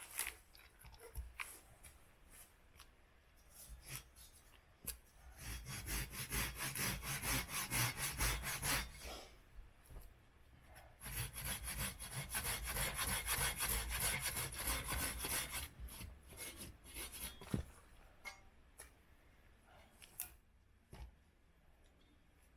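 Hand saw cutting through wood in two long runs of quick back-and-forth strokes, with a pause between them and scattered knocks and rustling either side.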